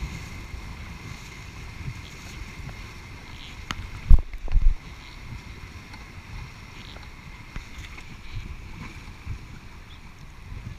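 Rushing river rapids around a paddled inflatable raft, with wind buffeting the microphone. About four seconds in come a couple of loud, low thumps.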